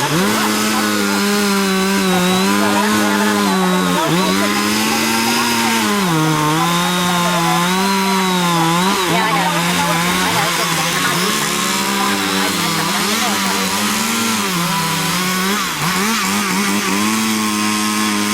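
Chainsaw engine running hard throughout, its pitch dropping and recovering several times.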